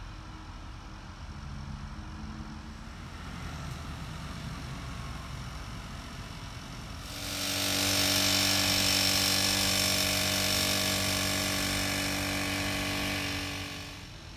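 A low rumble, then about seven seconds in a loud engine starts running at a steady speed with a hiss over it. It holds for about seven seconds and cuts off near the end.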